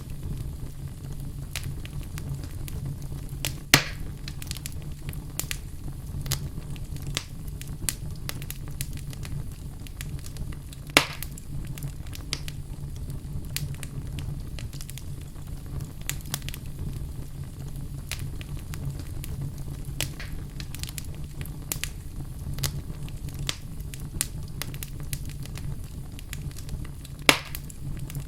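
Wood fire in a fireplace crackling, with frequent small snaps over a low steady rumble, and three louder pops about 4 seconds in, 11 seconds in and near the end.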